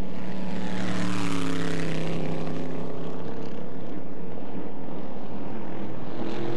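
Supercharged inboard engine of a flat-bottom race boat running at speed past close by: a steady engine note, with a swell of rushing noise about a second and a half in as the boat goes by.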